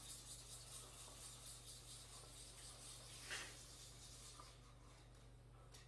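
Faint rubbing strokes of a paintbrush applying water-based paint to a panel, with one slightly louder stroke about three seconds in.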